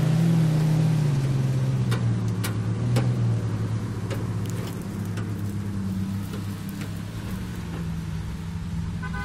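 Off-road 4x4 SUV engine running under load as it tows a second SUV and a log-laden trailer on a strap; the engine note drops about a second in, then holds steady and slowly fades as the vehicles pull away. A few sharp knocks come around two to three seconds in.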